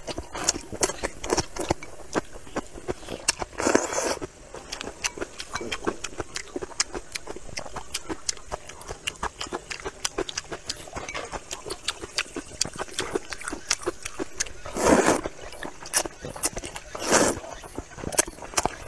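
Close-miked eating of spicy rice noodles in broth: constant wet chewing and lip smacks, broken by a few loud slurps of noodles, about four seconds in, around fifteen seconds and again near seventeen seconds.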